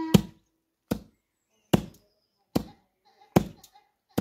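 Wheat being pounded by hand: a steady rhythm of heavy thuds, about one every 0.8 seconds, six strokes in all.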